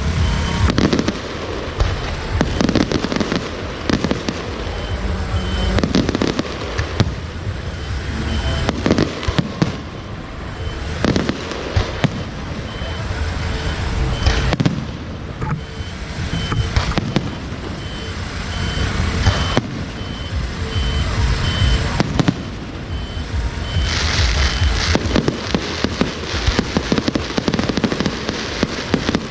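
Fireworks and firecrackers going off continuously: sharp bangs in quick succession over a steady crackle, with a denser burst of crackling about 24 seconds in.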